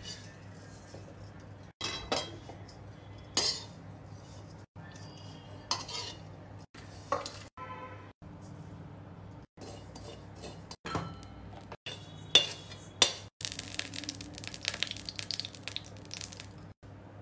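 Kitchen utensils clinking and scraping against a metal pan as dry ingredients are poured and stirred. The sound comes in short pieces broken by brief dropouts every second or so, with a dense crackling rustle for the last few seconds.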